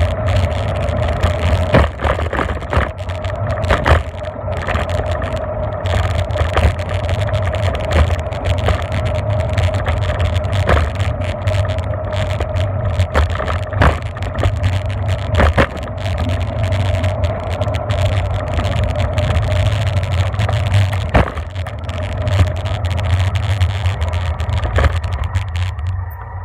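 Wind buffeting the microphone of a camera on a moving bicycle, over a steady rumble of tyres on the road surface, with the odd short knock or rattle as the bike goes over bumps.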